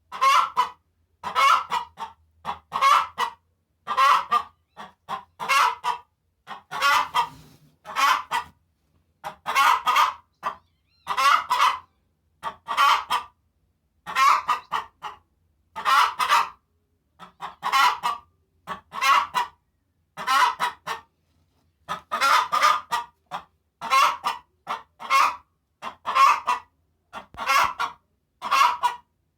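Hen cackling after laying an egg: the egg song, a loud call repeated over and over, about once every second and a quarter.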